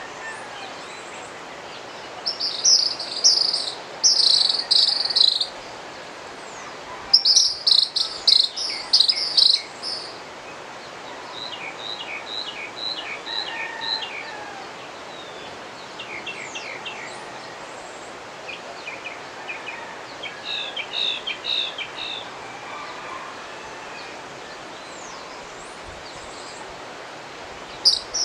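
Mountain river rushing steadily, with birds singing over it: two loud bursts of rapid high chirping song in the first ten seconds, then several quieter runs of short chirps.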